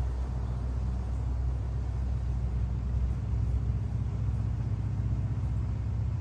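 Steady wind rumble buffeting the microphone, a low, unbroken drone with no distinct events.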